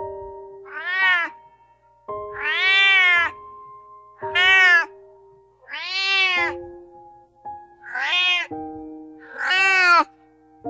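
A domestic cat meowing six times, each meow rising and then falling in pitch, over soft background piano music.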